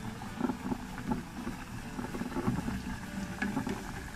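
Hot oil bubbling and crackling vigorously around a masa quesadilla deep-frying in a pot, a steady fizz full of small pops.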